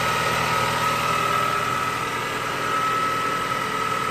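Car engine idling steadily, with a constant high whine over it.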